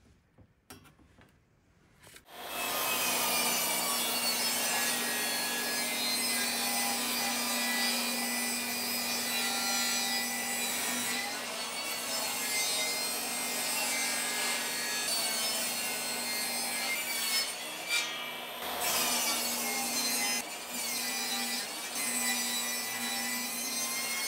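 Portable table saw starting up about two seconds in, then running steadily while ripping a long cedar fence board lengthwise. The motor's pitch sags briefly at times as the blade takes the load of the cut.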